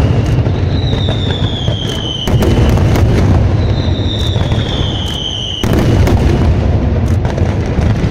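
Daytime fireworks display: a dense, continuous barrage of shell bursts, booms and sharp cracks. A falling whistle sounds about a second in and again about four seconds in.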